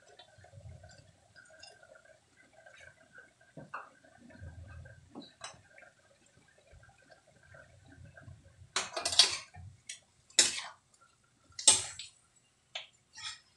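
Metal ladle scraping and clanking against a large metal wok as raw pork belly pieces are stirred. It comes as about six sharp scrapes over the last five seconds, after a few quiet seconds.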